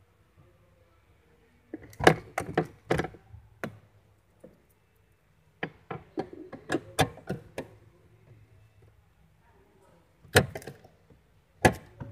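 Sharp knocks and clicks of a metal rod and its fittings being worked into a car seat back while an armrest is fitted. They come in three irregular clusters: about two seconds in, around the middle, and near the end.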